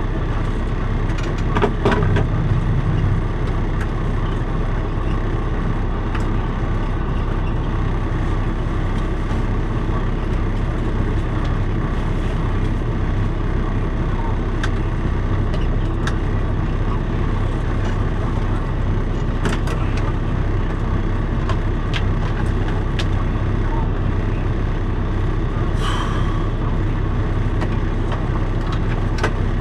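Semi-truck diesel engine idling steadily, heard from inside the cab, with a few light clicks and knocks from handling things in the cab.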